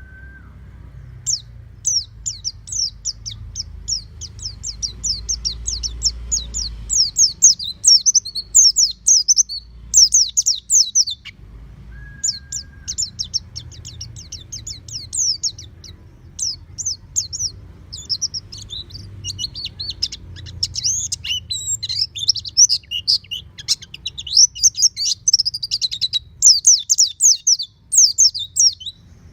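Pleci (white-eye) singing a fast, high twittering song in long unbroken runs. The song breaks off briefly about a third of the way through, and a short whistled note sounds just after. A faint low hum runs underneath.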